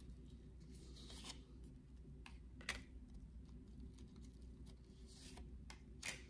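Tarot cards being laid down and slid onto a tabletop: a few faint soft taps and brushing sounds over a low steady room hum.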